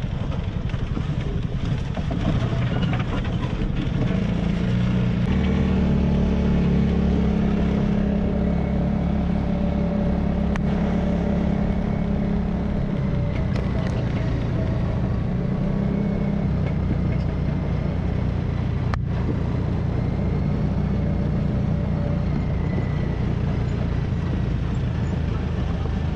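Engine of an off-road vehicle running while driving along a dirt track, heard close from on board, its pitch rising about five seconds in and holding steady before easing slightly. A single sharp click about nineteen seconds in.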